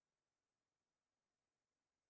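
Near silence: only a faint, even hiss, with no thunder or other sound.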